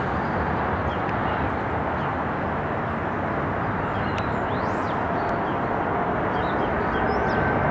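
Boeing 777 twin-engine jetliner on final approach with its gear down, its engine noise a steady rumble slowly growing louder as it nears, with steady whining tones coming in near the end. Faint bird chirps sound above it.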